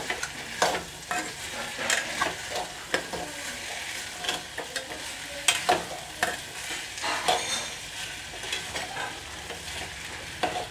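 Steel spoon stirring diced potatoes in a metal pot, scraping and clinking against the pan at irregular moments, over a steady sizzle of the potatoes frying in oil.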